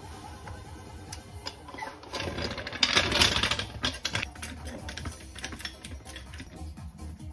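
Powered vehicle lift lowering the raised car: a steady machine hum with a pulsing beat, and a louder rushing noise from about two to four seconds in.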